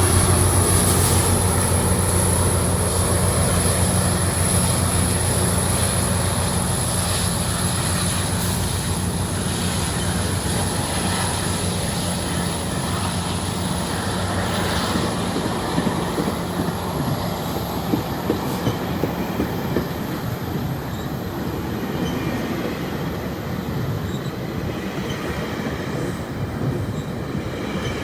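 GO Transit commuter train rolling by: a steady low engine drone and wheel noise with a thin, high wheel squeal that creeps up in pitch about halfway through, and a few rail clicks. The whole sound slowly fades as the train moves away.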